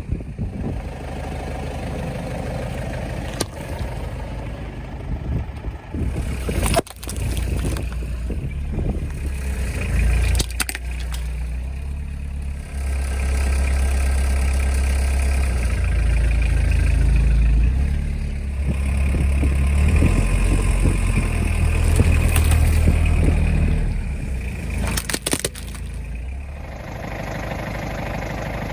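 Car engine running at low speed as the car rolls over objects, with a few sharp cracks and crunches as things break under the tyres.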